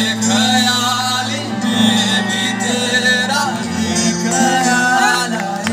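Male vocalist singing live with a small band, with guitar and keyboard accompaniment.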